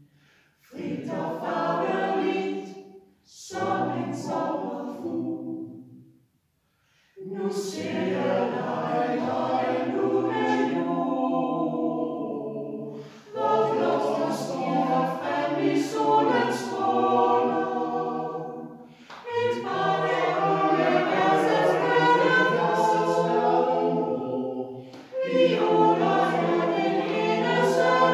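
Small mixed choir of men and women singing a cappella in a stone church. They sing in phrases split by brief pauses for breath: two short phrases, a pause of about a second, then longer held phrases.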